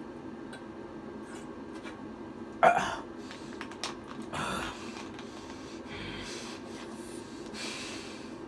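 Plastic water bottle being drunk from and handled: one loud, sharp sound about two and a half seconds in, then a few clicks and short soft plastic rustles as the bottle is capped and handled, over a steady low room hum.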